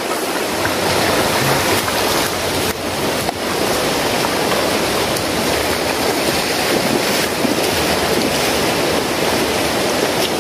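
Shallow river flowing over rocks: a steady, continuous rush of water.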